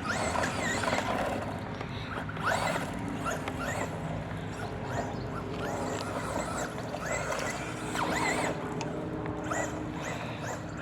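Electric motor of a Traxxas Slash 2WD RC truck whining as it is driven, its pitch rising and falling again and again as the throttle is worked.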